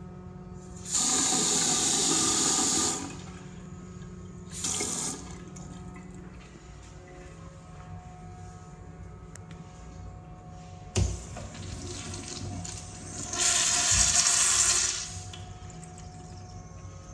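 A sink faucet runs into the basin for about two seconds, then gives a shorter second burst. About eleven seconds in, a urinal's flush valve clicks and the urinal flushes, the rush of water loudest for a couple of seconds before it tapers off.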